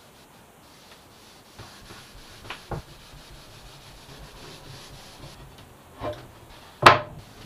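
Hand rubbing and sanding on wood, with a few light knocks. Near the end comes a sharp wooden knock as a finished wooden hatch panel is set down on the bench, the loudest sound.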